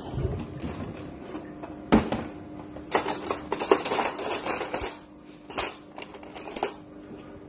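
A kitchen cutlery drawer being pulled open: a sharp knock about two seconds in, then metal spoons, forks and chopsticks clattering and clinking in the drawer tray for a couple of seconds, with a few more clinks near the end.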